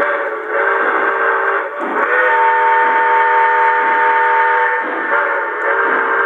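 Model steam locomotive's electronic sound system sounding a steam whistle: a short blast, then a long one, with a third blast starting near the end.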